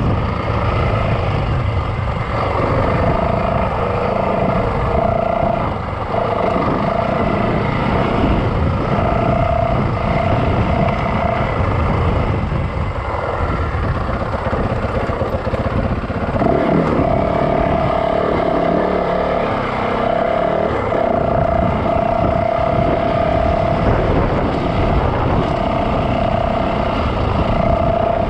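Yamaha dirt bike's engine running as it is ridden, holding a steady drone with a dense low rumble underneath.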